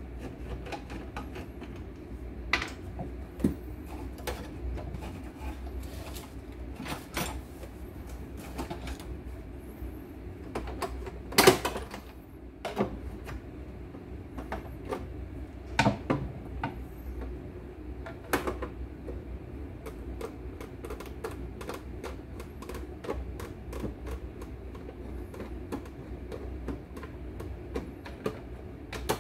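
Irregular clicks and knocks of a screwdriver and the plastic casing of an embroidery machine as it is handled and unscrewed. The loudest knock comes about eleven seconds in, over a low steady hum.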